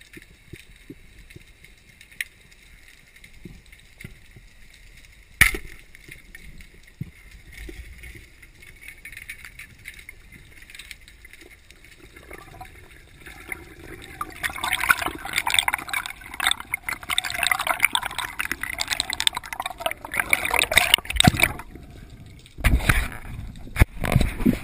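Underwater sound picked up by a spearfisher's camera. It is mostly quiet with scattered small clicks and one sharp knock about five seconds in. Past the middle a dense bubbling crackle of water sets in, and near the end loud splashing and rushing water as the diver comes up at the surface.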